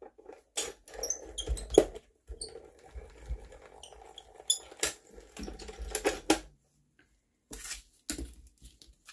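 Small die-cutting machine feeding a die and plate sandwich through its rollers: a low rumbling run in three stretches, with clicks along the way. A few sharp knocks follow near the end.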